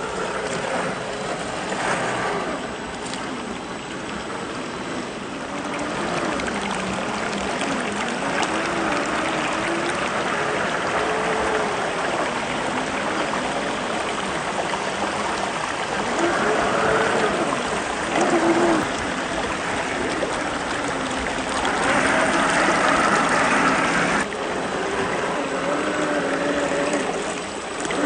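1/10-scale RC crawler's electric motor whining, its pitch rising and falling again and again with the throttle, over the steady rush of flowing water.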